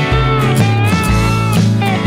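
Rock music with guitar: a lead line that bends in pitch over a moving bass line and a steady beat.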